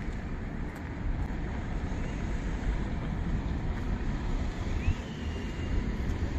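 Outdoor ambience: wind buffeting the microphone over a steady background rumble, with a faint short chirp about five seconds in.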